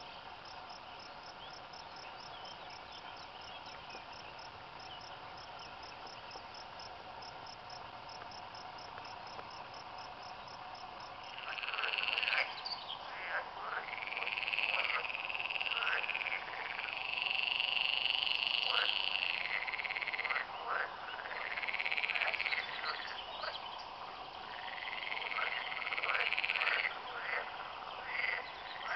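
Insects chirring steadily, with a fast even ticking. About twelve seconds in, a loud chorus of frogs croaking from a reedy pond takes over: long calls that rise and fall, each one to two seconds long, one after another.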